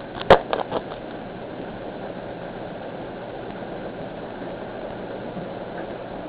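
Steady background hiss, with a sharp click and a few lighter ticks in the first second.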